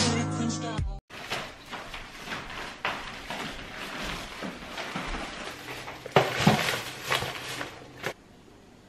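Intro music cuts off about a second in, followed by several seconds of indoor clattering and knocking handling noises, loudest near the end, which stop abruptly.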